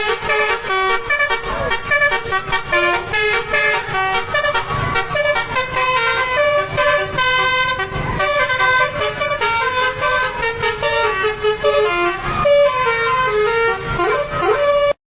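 Bus telolet (basuri) horn playing a tune: a loud run of held and quick notes, several horn tones sounding together, cutting off briefly near the end.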